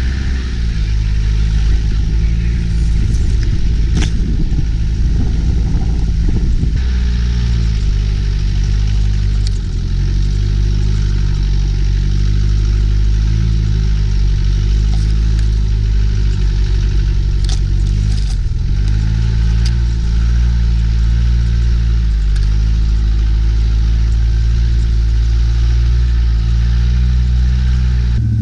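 Land Rover Discovery engine running at low, gently rising and falling revs as the truck crawls along a rough dirt track, with a few sharp knocks from the body and suspension over bumps.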